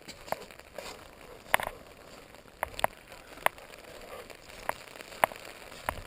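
Raindrops tapping on an open umbrella: about nine sharp, irregular ticks over a faint steady patter of rain.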